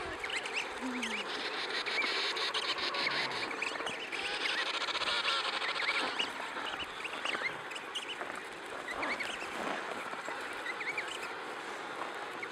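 Emperor penguin colony calling: many short, high chirping calls scattered throughout, over a steady hiss.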